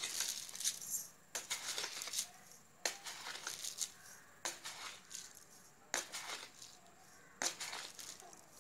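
Granulated sugar tipped spoonful by spoonful into a dry nonstick pan: six short pattering rustles of grains landing on the metal, about one every one and a half seconds, each fading quickly.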